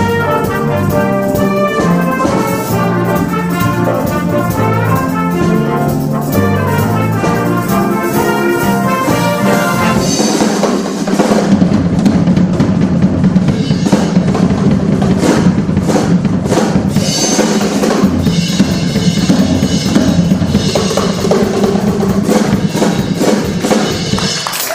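Live big band jazz: a brass section with trumpets and trombones over drum kit, bass and piano, playing a moving line over a steady beat. About ten seconds in the band swells into a long, louder held chord under drum fills and cymbal crashes, which cuts off near the end.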